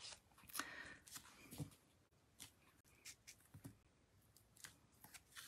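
Near silence, with a few faint light taps and rustles of paper and card being handled on a craft mat.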